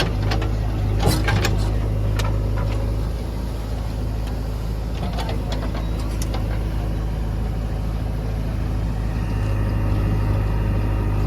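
JCB backhoe loader's diesel engine running steadily, with a few sharp clanks about a second in and again around five to six seconds in; the engine grows a little louder near the end.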